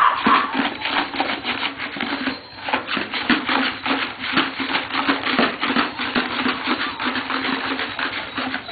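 Rapid tapping and scuffing steps on concrete, several a second, going on throughout.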